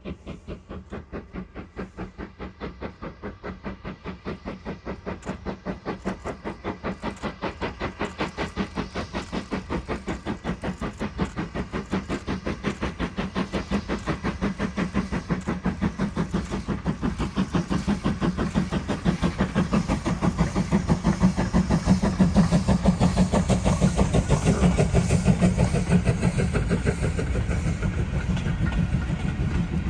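Ivatt Class 2 2-6-0 steam locomotive 46512 approaching under steam, its two-cylinder exhaust beating in an even rhythm of about three to four beats a second and growing steadily louder as it nears. Near the end it passes close by with its coaches rolling past.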